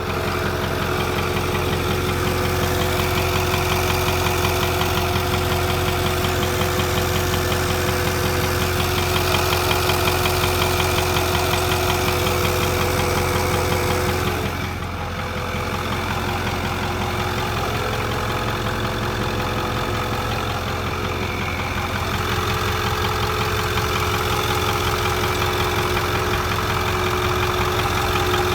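2008 Ford 6.4 L Power Stroke twin-turbo V8 diesel idling steadily, with a steady tone riding over the idle that dips briefly about halfway. It is a strange noise that appeared after a water pump replacement, which the owner suspects may come from a nicked vacuum line.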